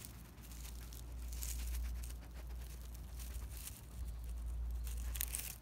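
Dry grass and old stalks rustling and crackling irregularly as a red fox noses and paws through them, over a steady low rumble.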